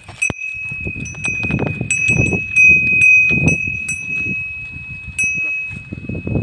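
Metal neck bell on an Ongole zebu cow ringing as the cow walks, struck again every fraction of a second so one high ringing tone carries on, over dull low thuds and rustling.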